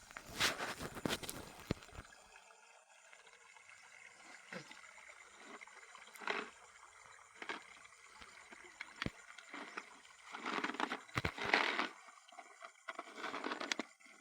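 Water sloshing and splashing in irregular bursts, with a few sharp clicks.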